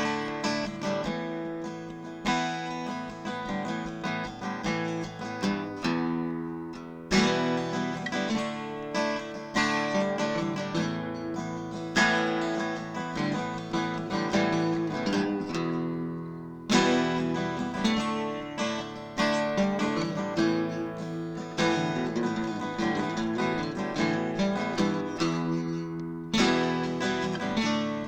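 Background music: acoustic guitar being picked and strummed, with chords changing every second or two and a strong accented strum every few seconds.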